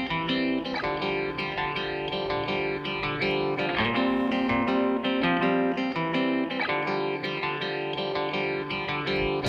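Background music led by guitar, with plucked notes over a steady bass.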